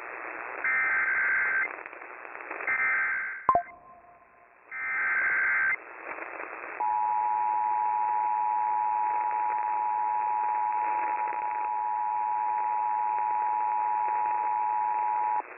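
Emergency Alert System activation heard over AM radio. It starts with three one-second bursts of SAME header data tones, with a sharp click after the second. Then comes the EAS two-tone attention signal, a steady dual tone held for about eight and a half seconds, over a background of radio hiss.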